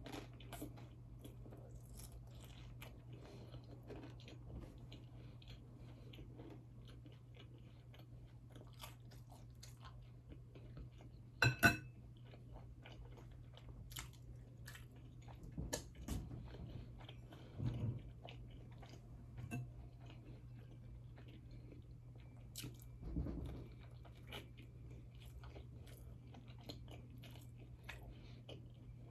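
A person chewing spaghetti bolognese at close range: soft wet chewing with many small mouth clicks. A sharp ringing clink comes about twelve seconds in, and a few louder chews or handling noises follow.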